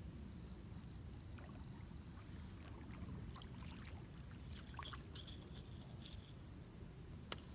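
Lakeside outdoor ambience: a low steady rumble with scattered light clicks and ticks, thickening in the middle and ending with one sharper click.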